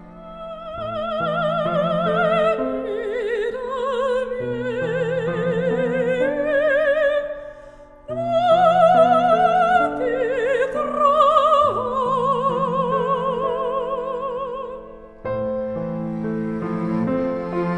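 Background music: an operatic voice sings long held notes with wide vibrato over a sustained low accompaniment, breaking off briefly about eight seconds in.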